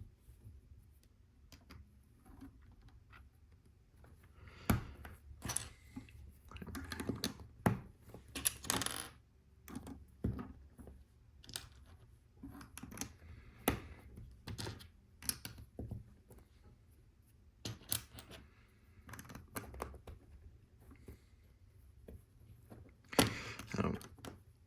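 Plastic LEGO bricks clicking and rattling as loose pieces are sifted through and fitted together: scattered small clicks, with busier, louder clusters about five to nine seconds in and again near the end.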